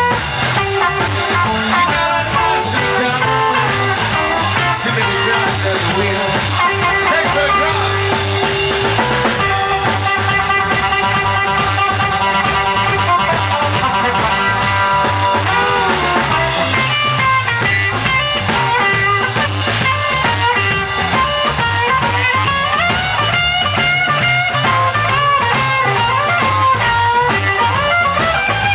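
Live blues band playing an instrumental passage: electric guitar lead with held and sliding notes over a drum kit beat.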